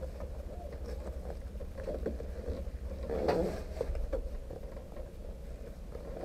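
Steady low rumble with wind buffeting the microphone inside a stationary race car's cockpit, with a brief, slightly louder muffled sound about three seconds in.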